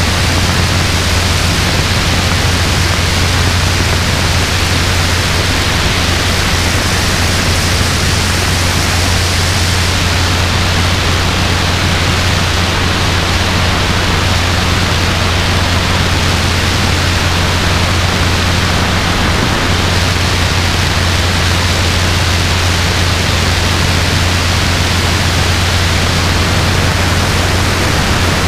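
Robinson R22 helicopter in steady cruise flight, heard from the cabin: a constant low engine and rotor drone under heavy wind rush.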